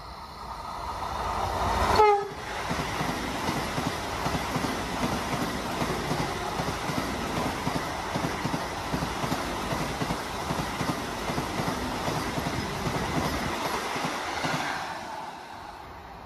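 Electric express train passing at speed. The sound builds as it approaches, and its horn drops in pitch as it goes by about two seconds in. Then comes a steady rush of wheels with regular clacking over the rail joints as the coaches pass, and it falls away near the end.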